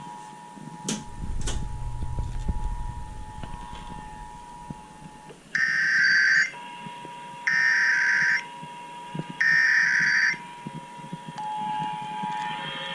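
Emergency Alert System SAME header data tones from an FM radio broadcast: three loud, identical screeching bursts of about a second each, a second apart, marking the start of the required monthly test. Before them come two sharp clicks and a low rumble.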